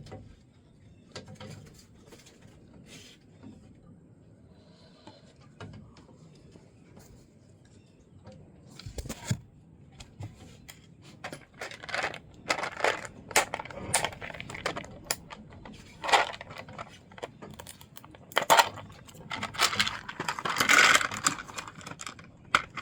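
Handling sounds of fabric and small objects: a few faint clicks at first, then from about halfway a busy run of sharp clicks, taps and rustling.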